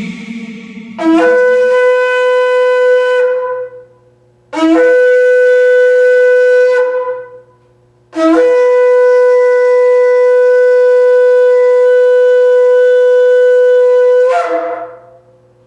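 Shofar blown three times: two blasts of about two seconds each, then one long blast of about six seconds. Each begins with a brief lower note that jumps up to a steady held pitch.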